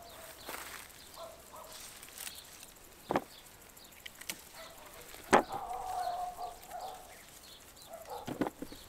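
Hens clucking faintly, with three sharp clicks or knocks about three, five and eight seconds in.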